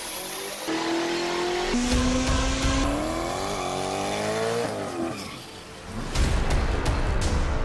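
Car engine clips cut together: engines holding steady notes with abrupt jumps, then a Ford Mustang's engine revving up and dropping back. In the last second and a half comes a loud burnout, the rear tyres spinning and squealing.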